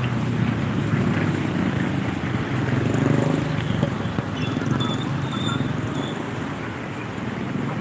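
Street traffic noise: motorbikes and cars running past on a wet road, a steady low rumble with tyre hiss.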